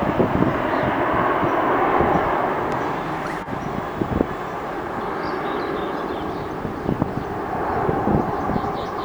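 Boeing 767-336(ER) jet engines running, a loud, steady rumble with a crackly low end that eases a little after about three seconds.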